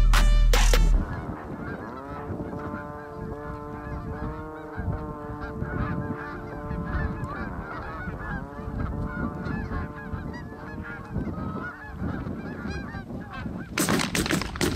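Music cuts off about a second in, giving way to a large flock of Canada geese honking and calling overhead in a constant, overlapping chorus. Near the end, shotgun shots ring out.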